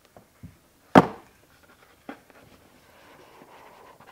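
Cardboard packaging being handled on a hardwood floor: one sharp knock about a second in, as a small cardboard box is set down, with a couple of softer taps and light rustling after.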